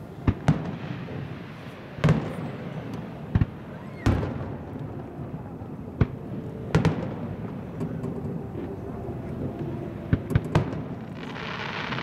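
Aerial fireworks display bursting: a string of sharp bangs a second or two apart, some in quick pairs and a quick cluster near 10 seconds in, each echoing. Near the end a hissing, crackling burst takes over.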